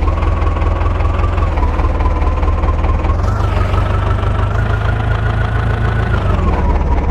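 Heavy diesel engine of a tractor or backhoe loader running with a deep throb. About three seconds in its whine climbs as the engine speeds up, then falls back to idle pitch near the end.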